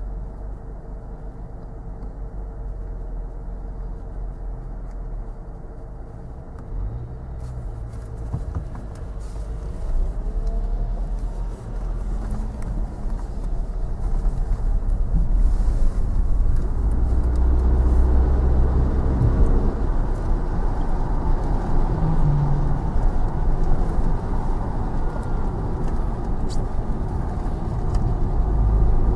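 KTM X-Bow sports cars' turbocharged four-cylinder engines running on wet tarmac in heavy rain, with a hiss of rain and wet-road noise over a low engine drone. The sound grows steadily louder from about halfway through as the cars come closer or speed up.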